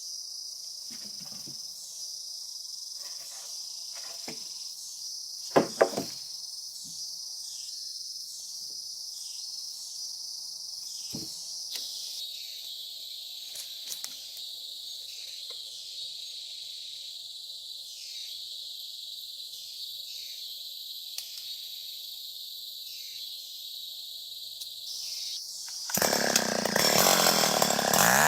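Steady, high-pitched insect chorus with a few sharp knocks, the two loudest close together about six seconds in. Near the end a chainsaw starts up and runs loudly, its pitch rising and falling as it revs.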